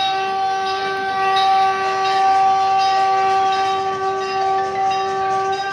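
A single steady horn-like tone with several overtones, held unbroken at one pitch.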